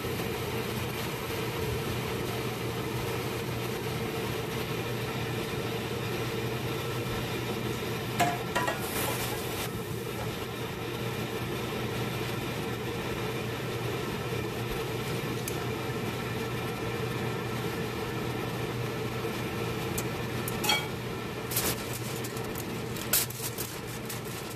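Steady mechanical hum, like a kitchen appliance fan. A few sharp clicks and crinkles come about a third of the way in and again near the end, as aluminium foil is handled over a glass roasting dish.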